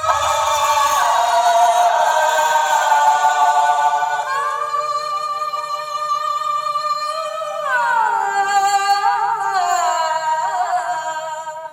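Music played loud through a DJ sound system during a sound check: long, held vocal-like tones that slide up and down in pitch, with little bass. It breaks off near the end.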